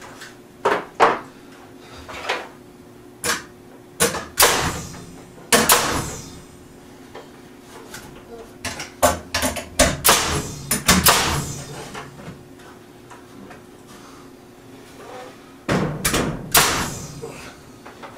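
Pneumatic framing nailer driving nails overhead into a 2x4 frame against the floor joists. Each shot is a sharp bang with a short hiss of air after it, and the shots come in several clusters.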